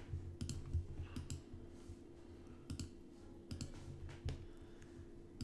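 Scattered, irregular clicks of a computer mouse and keyboard, a few per second at most, over a low steady hum.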